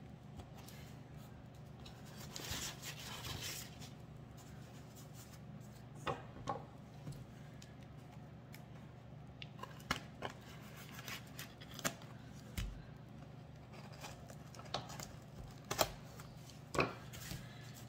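Faint handling of a cardboard shipping box and its newspaper packing: a stretch of paper rustling about two to three seconds in, then scattered light knocks and scrapes as small boxes are moved, over a steady low hum.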